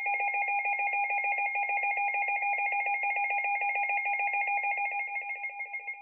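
Weather radio's built-in alert alarm going off: a rapidly pulsing electronic beep of two pitches at once, one low and one high. It starts suddenly and drops in volume about five seconds in. It signals an incoming warning, here a flood warning.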